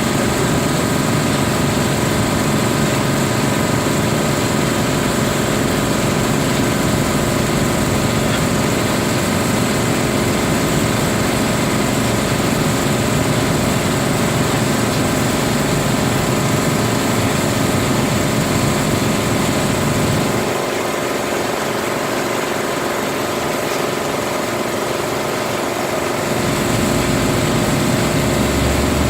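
Heavy machinery running with a steady drone and several steady tones. Partway through, the low rumble drops away for about six seconds, then comes back.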